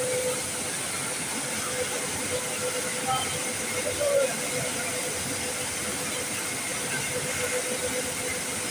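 A machine running steadily, a continuous hiss with a faint steady hum under it.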